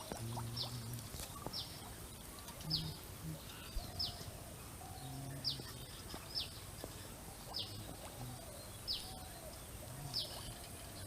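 A bird repeating a short, high, falling call about once a second, over faint outdoor background noise.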